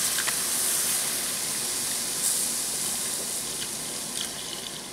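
Milk poured slowly from a measuring cup into a hot frying pan of onion-and-flour roux, making a steady pouring hiss that slowly fades, with a few faint ticks of a plastic spatula stirring.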